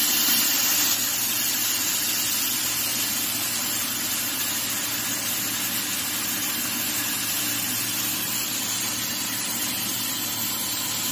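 Bodor fibre laser tube cutter bevel-cutting a square steel tube: a steady hiss from the cutting head's gas jet over a low, even machine hum, a little louder in the first second.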